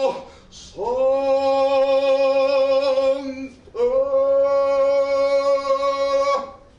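A man's voice singing two long held notes, each nearly three seconds, at the same steady pitch with a short break between them; each note slides up briefly into pitch as it starts.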